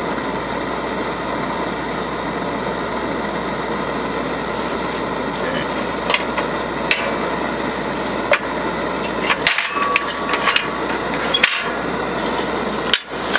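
Lightweight canister propane stove burning steadily with a loud, even rushing hiss. Through the second half, sharp metal clicks and knocks as a metal bush-pie iron is opened and handled.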